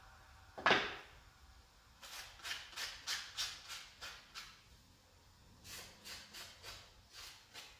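Ghost Tube Vox ghost-box app sweeping through frequencies, giving short bursts of static at about three or four a second that pause briefly midway. A single sharp sound comes about 0.7 s in.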